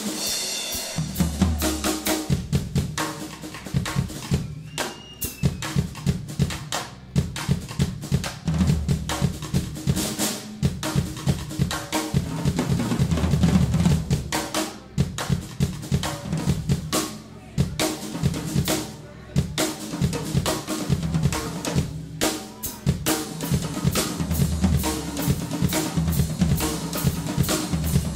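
Rock drum kit played hard in a fast drum passage: rapid strokes across snare, toms and bass drum, with cymbals.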